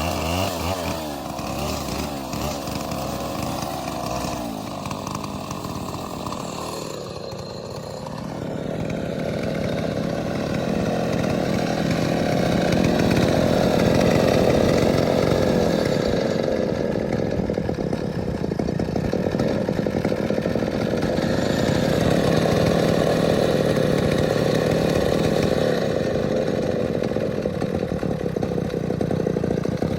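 Gasoline chainsaw running, cutting palm tree trunk: lighter for the first several seconds, then about eight seconds in it speeds up and runs loud and steady to the end.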